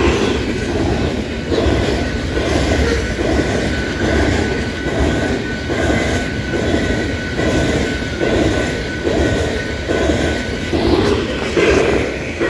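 Freight train of tank cars rolling past, the wheels clacking over the rail joints in a steady, even rhythm. A thin, steady high-pitched ring runs over the rumble.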